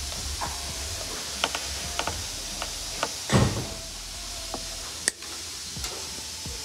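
A hand tool clicking and knocking against motorcycle parts, with a louder thud about three seconds in and a sharp click about five seconds in, over a steady hiss.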